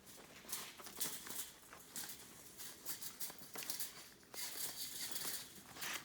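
Animals moving about close by: irregular scrabbling and rustling in short bursts, with no steady rhythm.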